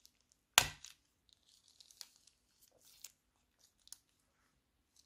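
Small plastic zip bag crinkling as it is squeezed and handled, with one loud sharp crackle about half a second in, then softer crinkling and a few small clicks.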